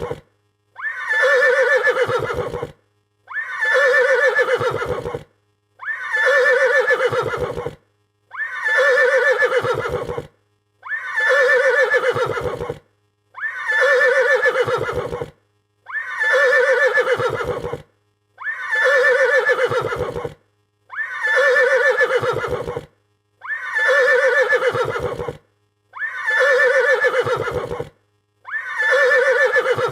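A frightened horse's neigh, the same whinny of about two seconds repeated roughly every two and a half seconds, about twelve times. Each call ends in a rapid low flutter.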